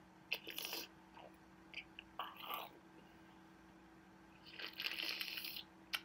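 Close mouth and breath noises from a woman holding her nose shut against hiccups: three short noisy bursts, the last lasting about a second.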